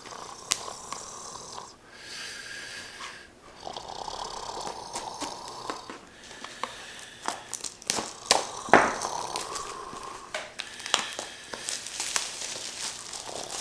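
A sealed cardboard wax box of trading-card packs being slit open with a utensil and its wrapping torn away. The sound is scratchy rasping and scraping, broken by many sharp crackles and clicks, with one louder scrape about nine seconds in.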